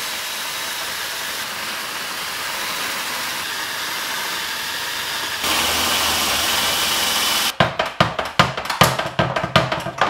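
Cordless drill turning a spot weld cutter through factory spot welds in a steel body bracket: a steady whirr, louder with a higher whine about five seconds in as the cutter bites. Near the end the drilling stops and a quick run of metal clanks and knocks follows as the steel pieces are handled.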